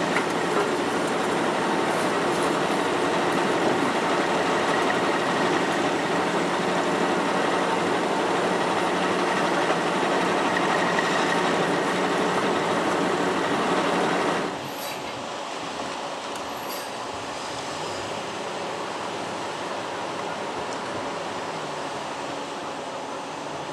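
Foundation drilling machinery working a steel pile casing: a loud, steady mechanical grinding and rumble. About two-thirds of the way in, it drops abruptly to a quieter steady rush of water gushing from a flexible discharge hose, with a couple of faint clicks.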